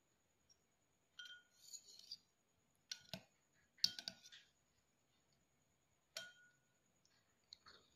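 Metal spoon clinking against a drinking glass as sticky brown-sugar tapioca pearls are spooned in: about five light, separate taps with brief ringing, the loudest a little before halfway.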